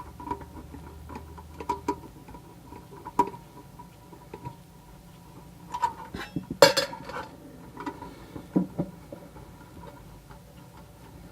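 Sheet-metal parts and screws of a homemade tin can muffler clinking and tapping as they are handled and taken apart. The taps are scattered and irregular, with a louder metallic clank about six and a half seconds in.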